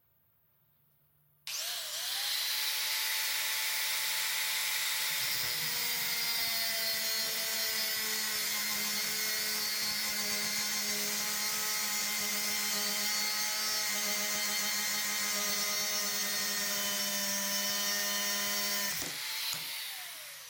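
Angle grinder with a cut-off disc cutting through a steel rod: it starts abruptly about a second and a half in and runs with a steady high whine. Near the end it is switched off and its whine falls as the disc winds down.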